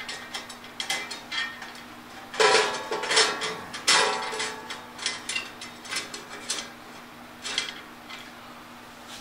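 A band saw blade being worked through the guides and onto the upper wheel of a cast-iron band saw: a run of light metallic clicks and rattles, with three louder ringing clanks about two and a half to four seconds in.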